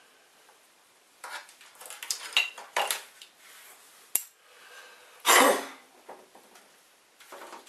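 Intermittent clatter and knocks of plastic and metal printer parts and hand tools being handled on a hard worktop: a run of rattling a second or so in, a sharp click about four seconds in, and the loudest knock just after five seconds.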